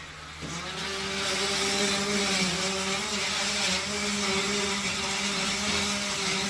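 Electric power tool starting up about half a second in and running steadily with a motor hum and a high hiss, cutting into the wall.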